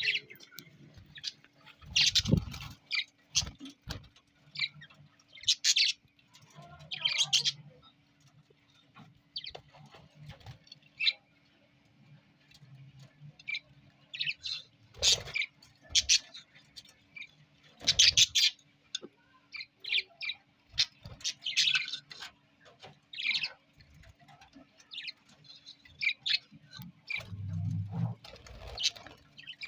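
Budgerigars chirping in short, scattered high calls, with a few sharp knocks and a faint steady hum underneath.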